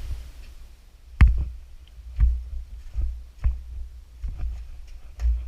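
Irregular dull thumps of a caver moving along a cave passage, about one a second and the first the loudest, over a constant low rumble.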